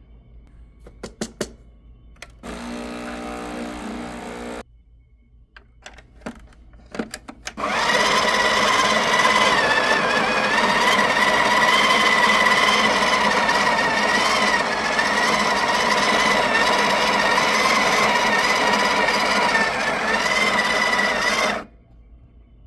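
Breville Barista Express's built-in conical burr grinder grinding coffee beans, a loud steady whir for about fourteen seconds that stops abruptly. Before it come a few clicks and a short lower hum from the machine.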